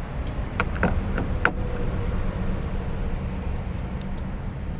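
A few light, irregular clicks and knocks from a small ratchet and its bits being handled, over a steady low rumble. The clicks are in the first second and a half, with a couple of faint ticks near the end.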